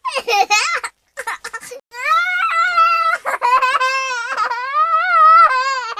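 Young children laughing: short giggles in the first two seconds, then a long, high-pitched, wavering squealing laugh from about two seconds in until near the end.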